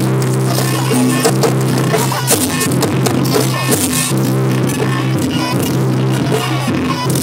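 Live Javanese jaranan gamelan music in the fast sampak style, with rapid drum strokes over steady, held low tones.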